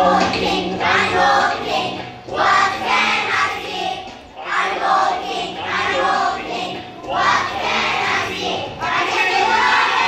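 A group of young children singing a children's song together over recorded backing music, in short phrases of a second or two.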